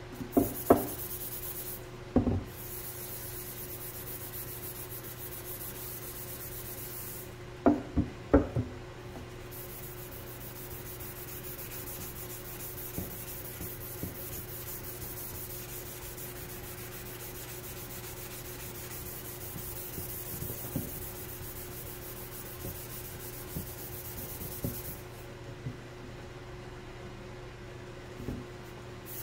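An abrasive pad rubbed by hand over hard plastic spoiler parts, a steady scratchy hiss that pauses a few times while sharp knocks sound as the parts are handled and set on the bench. A steady low hum runs underneath.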